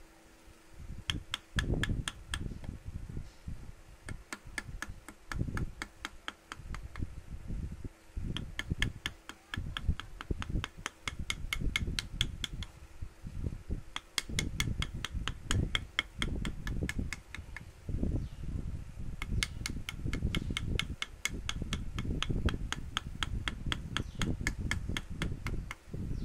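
Rapid, regular tapping, about four sharp strikes a second, in runs of several seconds with short breaks, over irregular low rumbling and, in the first and last parts, a steady low hum.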